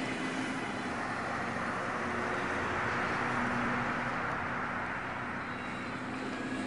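Steady ambient background noise: an even hiss with a faint low hum running under it, swelling a little midway, with no distinct events.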